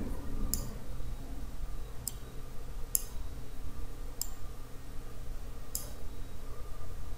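Computer mouse clicking, about five separate sharp clicks a second or so apart, over a faint low steady hum.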